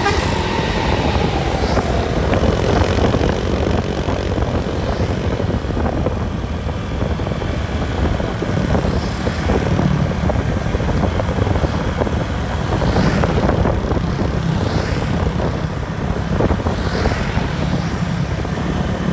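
Steady drone of a bus engine and road noise while driving, with a few brief whooshes.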